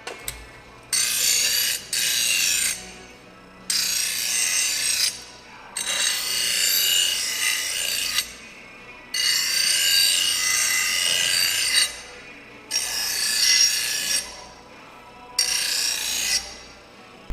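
Long abrasive strokes of hand-finishing a plasma-cut metal plate, scraping the edges clean. Seven strokes, each one to two and a half seconds, with short pauses between.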